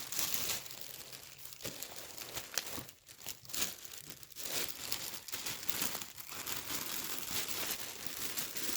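A crinkly bag being handled and rustled as balls of yarn are stuffed into it, with an irregular crackle that goes on throughout.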